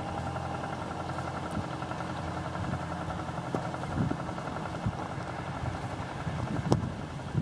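Vintage tractor engine running steadily as the tractor drives along, with a few short knocks over it, the sharpest near the end.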